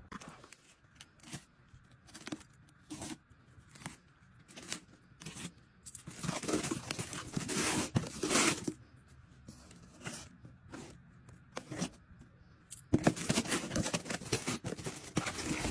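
Cardboard boxes being opened by hand: packing tape tearing and cardboard flaps scraping in short strokes, with longer tears about six to nine seconds in and again near the end.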